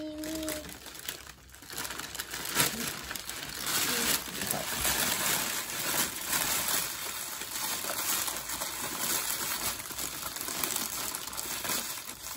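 Clear cellophane wrap crinkling and rustling continuously as hands pull and gather it off a gift basket.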